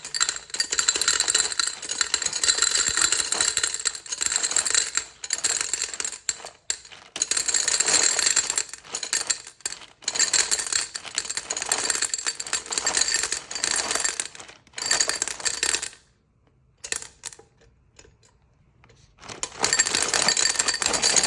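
Gumball machine rattling and clinking as coins and gumballs run through its metal mechanism. The sound comes in long bursts and nearly stops for a few seconds near the end.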